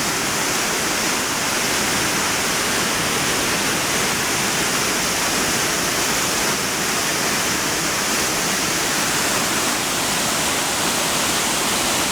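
Waterfall: a steady, loud rush of falling water, with no change in level.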